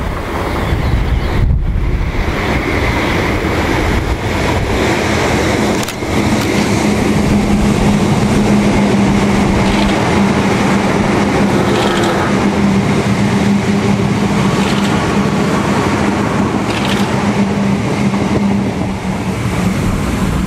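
DART electric multiple unit passing close by at speed, a steady rumble of wheels on rail with a low electric hum that holds for most of the pass and fades near the end.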